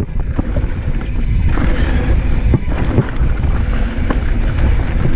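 Polygon Square One full-suspension mountain bike ridden fast down a rough, rocky dirt trail: a steady rush of wind on the handlebar camera's microphone over the rumble of tyres on dirt and gravel, with several sharp knocks as the bike hits bumps.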